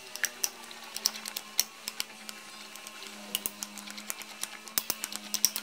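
A metal utensil stirring eggs, milk and cooked mung beans in a bowl, clicking and scraping against the bowl's side several times a second in an uneven rhythm. A steady low hum runs underneath.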